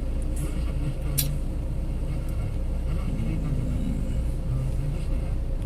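Steady low rumble of car engines and traffic in a slow-moving jam, with a short tick about a second in.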